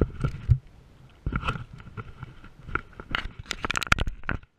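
Close-up handling noise from a chest-mounted camera on a kayak: irregular knocks, scrapes and clicks in clusters, densest near the end, then an abrupt cut-off.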